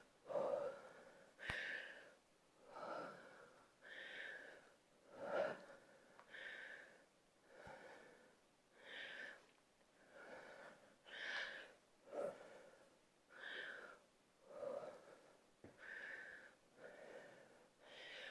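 A woman's faint, rhythmic breathing from exertion, short breaths in and out about once a second, as she works through dumbbell reverse lunges and single-leg deadlifts.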